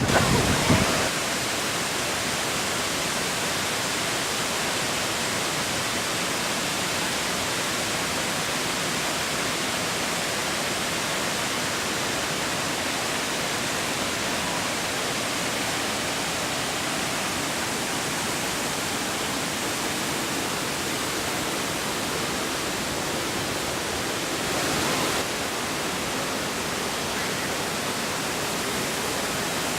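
Waterfall: a steady, even rushing of falling water, swelling briefly about 25 seconds in.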